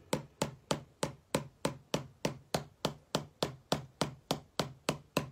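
Gloved fingers tapping steadily on the bottom of an upturned plastic yogurt cup full of acrylic pouring paint, which sits on a canvas: even, sharp taps at about four a second.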